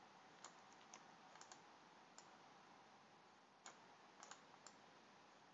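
Faint, scattered clicks of a computer mouse and keyboard, some in quick pairs, over near-silent room hiss.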